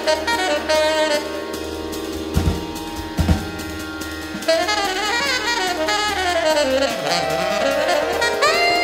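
Live jazz: a tenor saxophone playing held and moving notes over a steady low electronic drone, with guitar and a few drum hits. Through the middle, sliding tones fall and then rise again.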